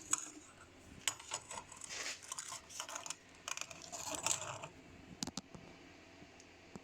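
Light metallic clicks and clinks of small metal spacer washers and a measuring tool being handled while the washer's outer diameter is measured, with two sharper clicks a little over five seconds in.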